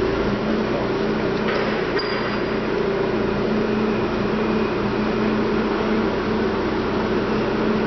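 K.O. Lee SE618 hand-feed surface grinder running, its motor and spindle giving a steady hum.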